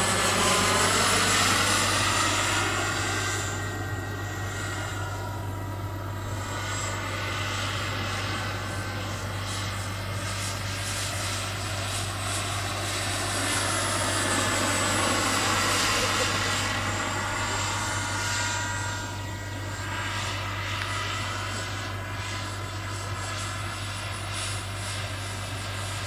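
Turbine-powered RC scale model Aérospatiale SA-315B Lama helicopter in flight: a steady high turbine whine over the rotor sound. Its pitch glides slowly up and down as it flies past, and it is loudest shortly after the start and again a little past halfway.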